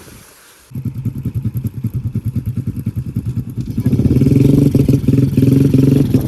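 A diesel engine, that of a Kubota DC-70 combine harvester (a three-cylinder turbo diesel), starts suddenly less than a second in and runs with a fast, even pulsing beat. It gets louder about three seconds later, as if revved up.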